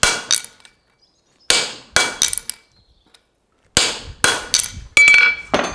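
Farrier's hammer striking a steel nail stamp on a horseshoe on the anvil, stamping the nail holes: about ten sharp metallic blows in groups of two or three, each with a brief ring. A blow near the end rings on longer.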